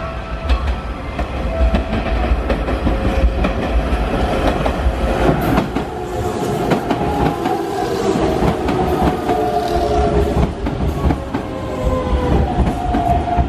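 Hanshin 5500-series renovated electric local train (car 5507) running into the station: repeated clicks and clatter of its wheels over rail joints and points under a steady rumble, with a whine from its electric drive that drifts in pitch.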